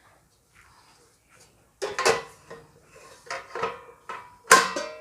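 Air fryer's metal pan and basket being handled, knocking against each other: clattering knocks about two seconds in and a sharper clank near the end, each ringing briefly.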